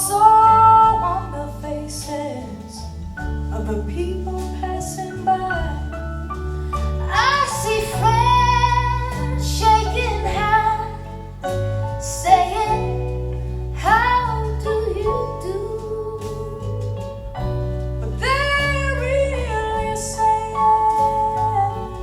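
A folk song with a sung melody over steady bass notes, played back through a pair of Klipsch The Nines powered speakers in a sound test.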